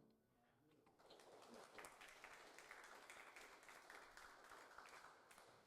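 Faint applause from the congregation, starting about a second in once the closing piano music has stopped.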